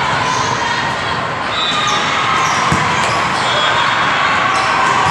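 Volleyballs being struck and bouncing in a large, echoing hall full of courts, with one heavier thump about two and a half seconds in, over a steady din of many voices.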